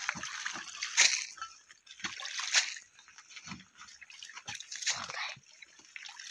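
Metal mesh skimmer dipping into an ice-fishing hole and lifting out broken ice and slush: splashes and sloshing of water and ice pieces, in short strokes about once a second.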